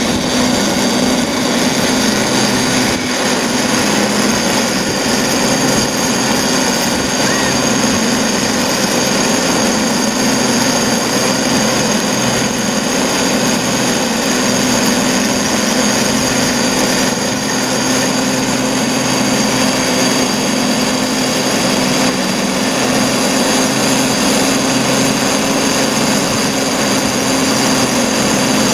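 Haulage cable of the Great Orme cable tramway running over the pulleys between the rails: a steady, unchanging whirring hum with a high whine.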